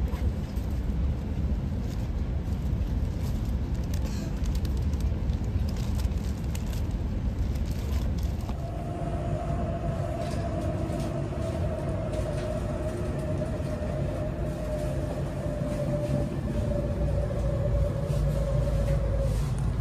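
Low, steady running rumble of an E8 series Shinkansen train, heard from inside the car. About halfway through, a steady mid-pitched whine joins and sinks slightly in pitch before fading near the end.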